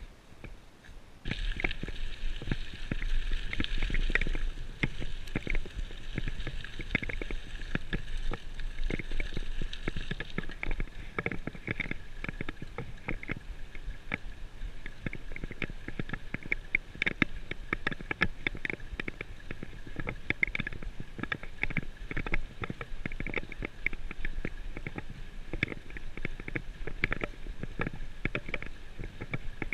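Bicycle riding on a rough asphalt road, starting about a second in: a steady rumble of tyres and wind, broken by many irregular rattles and knocks as the bike goes over the bumps.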